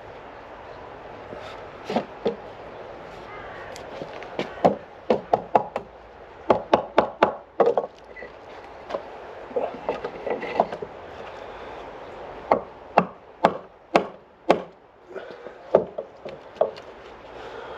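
Sharp wooden knocks and whacks, wood struck hard on wood, in irregular clusters of quick blows, some in runs of four or five in rapid succession.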